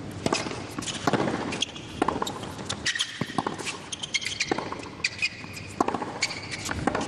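Tennis rally on a hard court: a string of sharp racket strikes and ball bounces, with short shoe squeaks between them.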